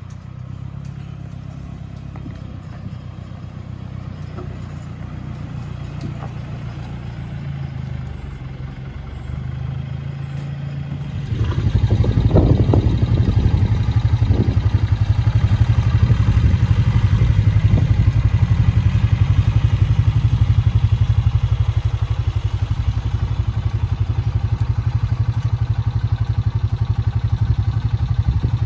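Farm tractor diesel engine running steadily, becoming much louder about eleven seconds in, with a few clattering knocks just after the jump.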